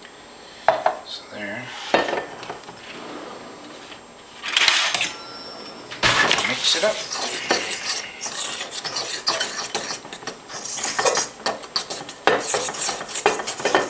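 A utensil stirring and scraping in a stainless steel mixing bowl, working water into flour for a stiff bread pre-ferment. It starts with a few separate knocks and a brief rush of noise, then from about six seconds in comes quick, irregular clinking and scraping against the metal bowl.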